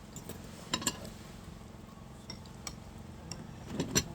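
Cutlery clinking against plates and bowls while eating: a few scattered light clinks, the loudest just under a second in and near the end, over a steady low hum.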